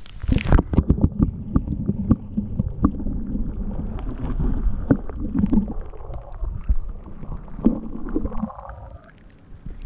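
Pool water sloshing and gurgling around a camera at and under the waterline, with many soft knocks and splashes as a puppy paddles beside it. The sound is muffled, as heard with the microphone underwater.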